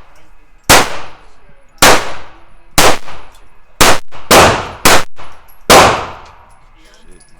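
Gunshots on a shooting range: seven loud, sharp shots at an irregular pace, about half a second to a second apart, each echoing briefly.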